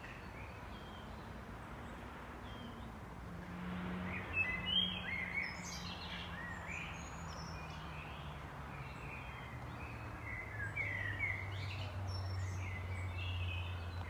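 Several songbirds singing together, a dense mix of short, varied chirps and phrases that gets busier from about three seconds in. Underneath runs a low, steady hum that slowly drops in pitch.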